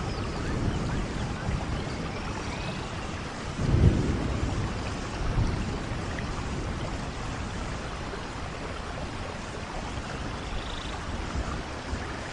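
Steady rain falling in a forest, pattering on leaves and the ground, with a low rumble swelling briefly about four seconds in.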